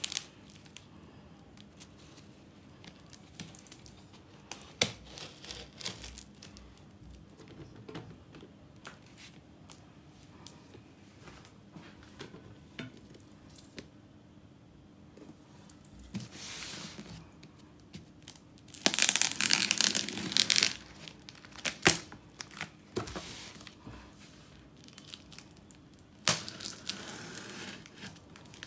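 Clear packing tape on a cardboard box being slit with a knife and torn away, amid taps and scrapes of the box being handled. The loudest tearing comes in a stretch about two-thirds of the way through, with a fainter one just before it and another near the end.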